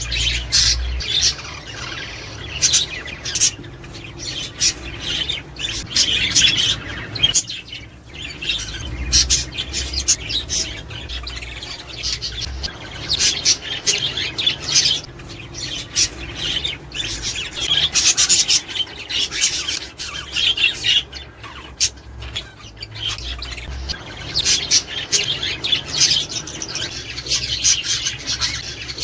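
A flock of budgerigars chattering without pause, many quick overlapping chirps and warbles. This is the kind of flock chatter played to budgies to stimulate them to pair and breed.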